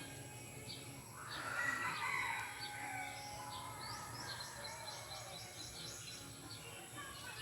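Bird calls: one long call that rises and then falls, starting about a second in, over faint repeated high chirps.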